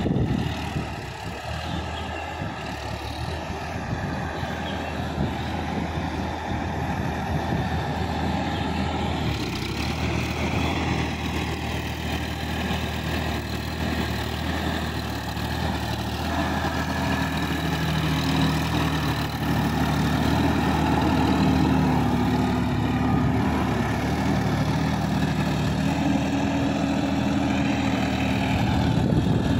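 A compact diesel tractor engine running under load, growing steadily louder as it comes closer. Its steady engine note becomes clear over the second half.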